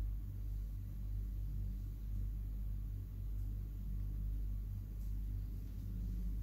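A steady low hum, even in level throughout, with no clear squelching from the hands working the marinade.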